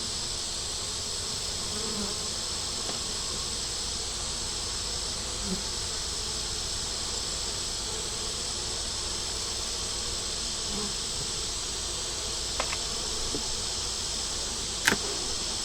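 Honey bees buzzing steadily around an opened hive, a continuous hum, with a sharp click about a second before the end.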